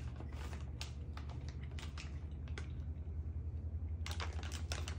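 Crinkling and crackling of a plastic candy bag as a hand rummages in it for a gummy: irregular crisp crackles, bunched about four seconds in, over a steady low hum.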